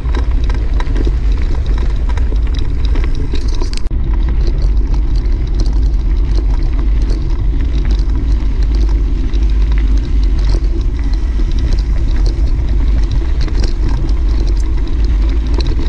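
Wind buffeting the microphone of a camera on a moving mountain bike, a loud steady rumble, with the tyres crunching and rattling over the loose gravel of a dirt road in many small clicks.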